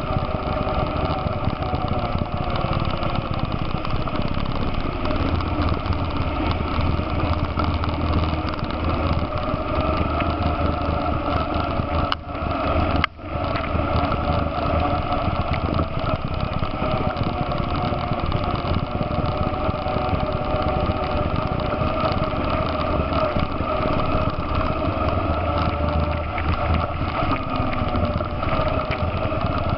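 ATV engine running steadily under way, heard from on board, its pitch rising and falling a little with the throttle.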